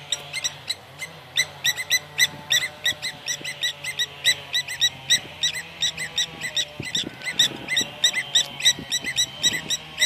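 Lapwings making a racket of rapid, repeated sharp alarm calls, several a second without a break, as the parents defend their chick near the nest.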